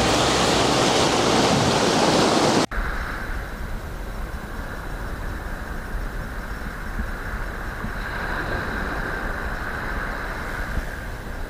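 Sea surf washing and splashing close up, cut off abruptly about two and a half seconds in, then quieter waves washing onto the beach.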